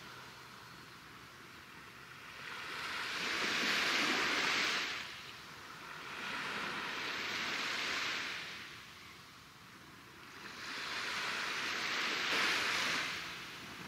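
Waves washing onto a shore: three surges of hiss that rise and fall about four seconds apart.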